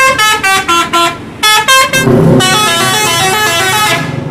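Bus musical multi-tone air horn (a 'telolet' horn) playing a fast melody of short stepped notes. About halfway through, another horn tune carries on over a low rumble of engine and traffic.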